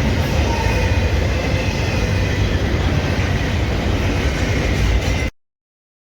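Norfolk Southern freight train rolling past with a loud, steady low rumble of wheels on rail. The sound cuts off suddenly about five seconds in, into dead silence.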